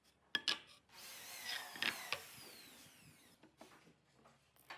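Pine boards handled on a wooden workbench: two sharp wooden knocks about half a second in, then a scraping slide with a falling whine lasting a couple of seconds, with two more knocks near its middle.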